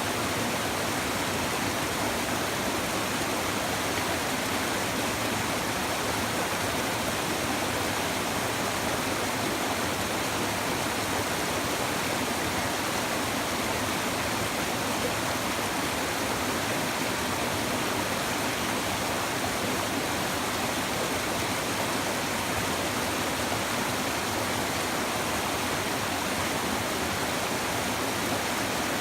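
Shallow stream babbling and rushing over stones in an even, unbroken wash of water noise.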